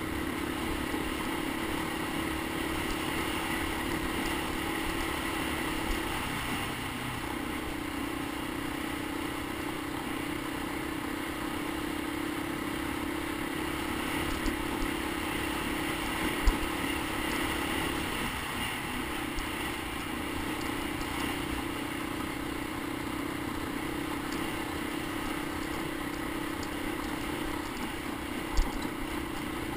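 Honda Big Red 250ES three-wheeler's single-cylinder four-stroke engine running at steady trail speed, its carburetor freshly rebuilt. The engine note dips briefly about six seconds in and again about eighteen seconds in, and two sharp knocks come about sixteen seconds in and near the end.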